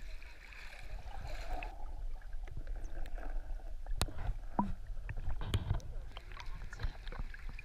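Action camera plunged underwater: the outdoor sound turns muffled about two seconds in, followed by water sloshing and bubbling with sharp clicks and low thumps against the housing.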